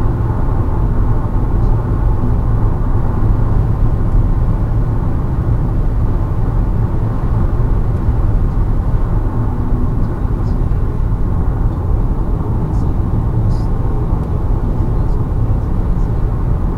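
Steady road, tyre and wind noise of a car cruising at highway speed, about 145 km/h, heard from inside the cabin.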